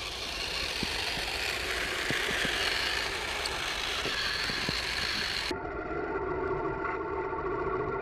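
Electric motors and track drive of a radio-controlled scale snowcat (an Axial SCX10 on Kyosho Blizzard tracks) running through deep snow: a whirring hiss with scattered light clicks. About five and a half seconds in, the sound changes abruptly to a steadier whine with several held pitches.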